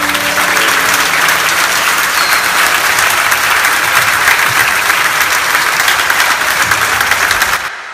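A large standing crowd applauding, dense and steady. A last held musical note fades out in the first second, and the clapping cuts off suddenly just before the end.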